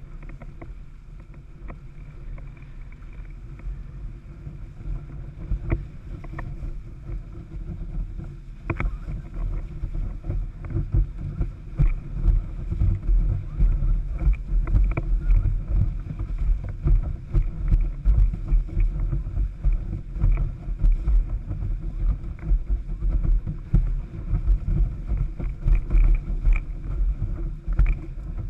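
Windsurf board sailing fast over choppy sea: water rushing and slapping against the hull, with heavy wind buffeting on the microphone. It grows louder about nine seconds in.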